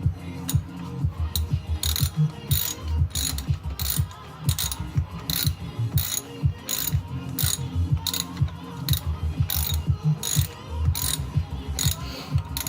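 Ratchet wrench clicking in a steady series of sharp ticks, about two to three a second, as a spark plug is turned in the cylinder head.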